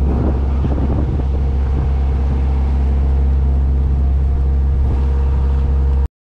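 A river water bus's engine running at steady cruising speed, heard on board as a deep, even hum, with water washing past the hull. The sound cuts out abruptly for a moment near the end.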